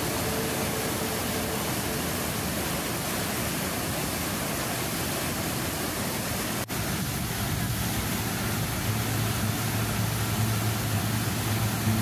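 Steady rush of whitewater from a mountain stream cascading over rock, with one brief dropout about two-thirds of the way through. A low steady hum joins in over the last few seconds.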